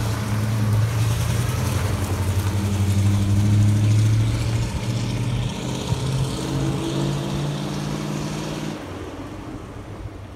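ZIL-131 army truck's V8 petrol engine running as the six-wheeler drives past and away. Its note is loudest a few seconds in, changes pitch about halfway, then fades as the truck pulls off across the yard.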